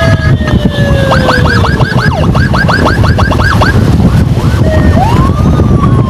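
Emergency vehicle sirens clearing traffic: a slow falling wail, then a fast yelp of about four sweeps a second, then a rise into another slow falling wail. Motorcycle engine and road rumble run underneath.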